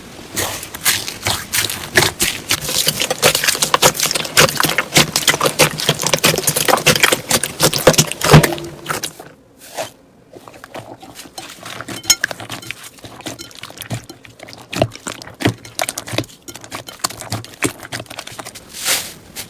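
Slime being squished and worked by hand, giving a dense run of wet clicks and crackles. The clicks thin out and grow quieter after about nine seconds.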